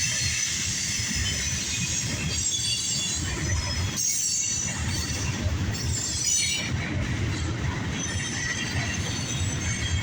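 Freight cars of a passing CSX mixed freight rolling by steadily, with the rumble of wheels on the rails and high-pitched wheel and flange squeal.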